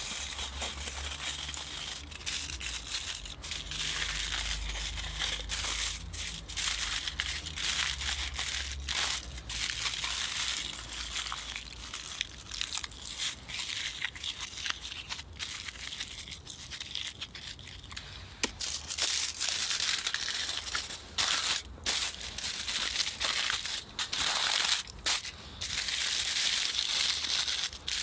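Aluminium foil crinkling and crumpling as it is folded and pressed by hand into parcels. The crinkling comes in irregular bursts with short pauses and is louder in the second half.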